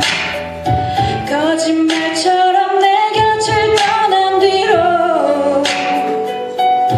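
Two women singing a pop song into handheld microphones over backing music with a steady drum beat and cymbal crashes about every two seconds.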